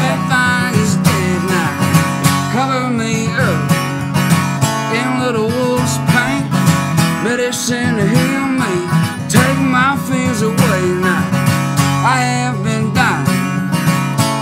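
Acoustic guitar strumming steadily in a country folk song, with a gliding, wavering melody line over the chords and no words sung.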